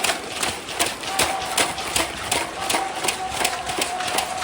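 Indoor sports-match noise: a dense stream of sharp knocks and slaps, several a second, with a faint steady tone that comes and goes.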